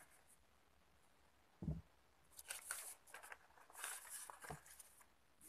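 Paper sewing pattern rustling in several short crisp spells as it is lifted and folded back off the fabric. A dull low thump comes just before the rustling and is the loudest sound, and a softer knock follows near the end.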